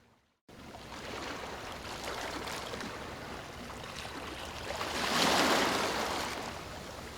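Ocean surf. After a brief silent gap it cuts in as a wash of water noise, swells into a wave breaking about five seconds in, then recedes.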